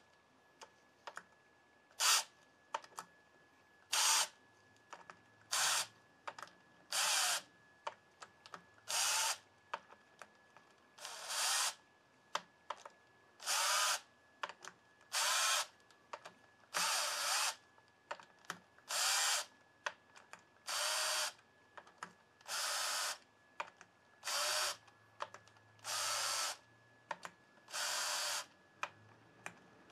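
Cordless drill-driver turning the clutch spring bolts of a Honda VTX1800 in about fifteen short runs, each under a second and roughly two seconds apart. The bolts are run in a little at a time to compress the new clutch springs evenly.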